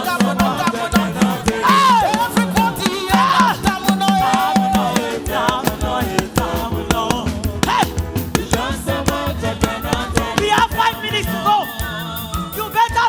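Upbeat gospel praise music: a band with drums, bass and keyboard playing a fast, steady beat while singers and a congregation sing along.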